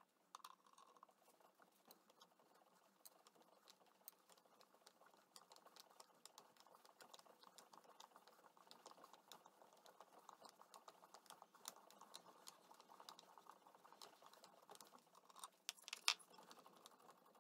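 Faint, rapid patter of small metallic clicks as a threading die in its holder is run back along aluminum threads on a hand-turned metal lathe, with one sharper click near the end.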